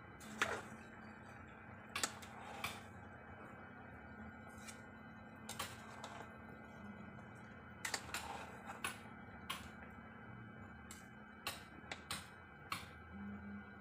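Metal spoon clinking and scraping against a metal cooking pot while shredded jackfruit is stirred, with irregular clinks about once a second.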